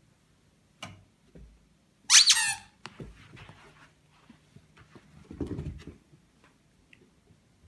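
A plush squeaky toy gives one short, falling squeak about two seconds in as a Chihuahua puppy goes at it. Light taps of paws sound around it, and a dull thump comes about five and a half seconds in.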